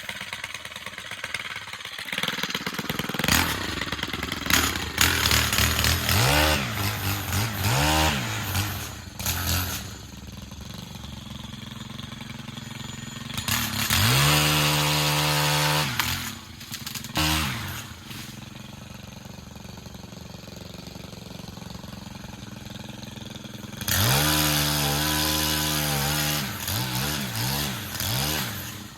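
Stihl pole saw's motor revving up and down in repeated bursts, a few short ones and two longer runs of several seconds, with a lower steady running sound between them.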